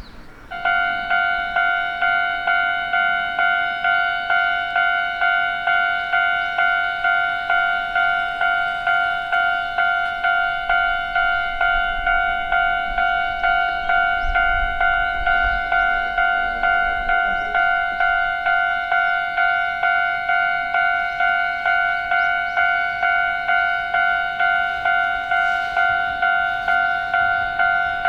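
Japanese level-crossing warning bell ringing its steady, repeating "kan-kan" alarm at about one and a half strikes a second, starting about half a second in.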